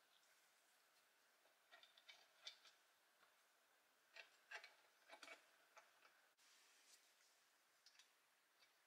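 Faint light clicks and taps of small steel axle parts being handled and slid into a toy's painted steel frame, in a few short clusters.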